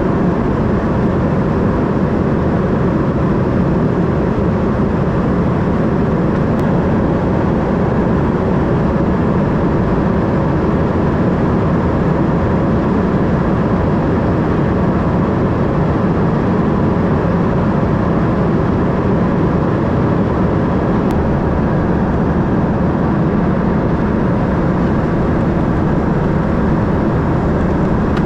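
Steady cabin noise of an Embraer ERJ 145 at cruise: the rush of air along the fuselage and the drone of its rear-mounted Rolls-Royce AE 3007 turbofans, holding even throughout.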